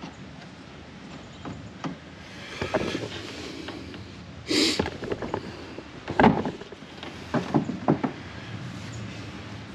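Plastic handling knocks and clicks from a fishing rod being shifted in a clamp-on plastic rod holder. There is a short scraping rush about halfway through and the sharpest knock a little after.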